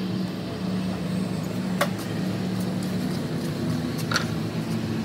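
A steady engine or motor hum, with a sharp click about two seconds in and a brief higher-pitched sound near the end.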